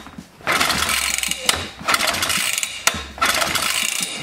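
Suffolk Super Colt small engine being turned over by its recoil pull-starter, three pulls in a row, the starter ratcheting and the engine cranking without firing. A compression gauge is fitted in the spark plug hole for a compression test.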